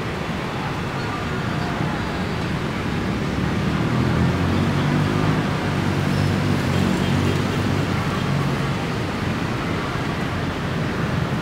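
Steady road traffic noise, with a motorbike engine swelling louder as it passes in the middle.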